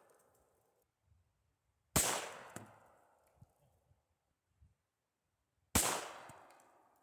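Two shots from a Heritage Rough Rider .22 LR single-action revolver, about four seconds apart, each a sharp crack ringing out and fading over about a second.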